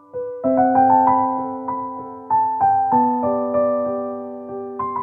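Background piano music: a slow, gentle melody of struck notes over chords that are left to ring and fade. A new chord comes in about half a second in.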